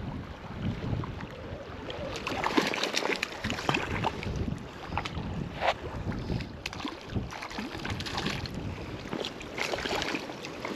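Irregular splashing of river water as a hooked brown trout is brought in and netted, over wind buffeting the microphone.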